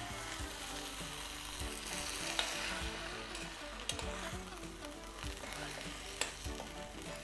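Glass noodles and prawns sizzling in a metal pot while being stirred with a metal spoon, the spoon clicking against the pot a few times. The dish is at the end of its cooking.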